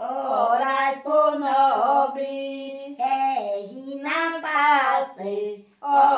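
A woman singing a devotional bendito alone, without accompaniment, in phrases of held and bending notes with short breaths between them.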